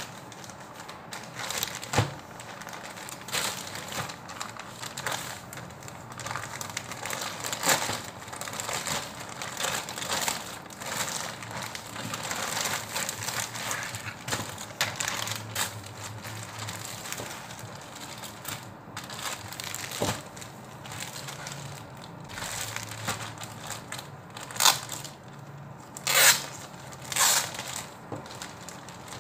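Plastic packaging crinkling and crackling as a plastic mailer and a clear plastic garment bag are handled and pulled open, with irregular crackles throughout and a few sharper, louder ones near the end.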